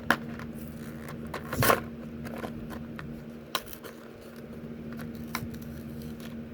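Die-cast car packaging being handled and opened: a few sharp clicks and one brief scraping rustle about one and a half seconds in, over a steady low hum.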